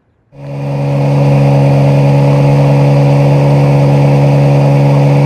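Johnson outboard motor running loud and steady at a constant throttle, pushing the boat along, with water rushing in the wake. It comes in about a third of a second in and holds an unchanging engine note.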